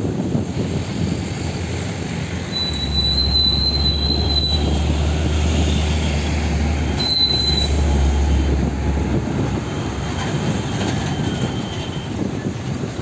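Hino 700 Profia tractor unit hauling an LPG tank trailer, its diesel engine running low and heavy as it creeps through a turn. A high brake squeal sounds twice, a longer one a few seconds in and a short one about midway.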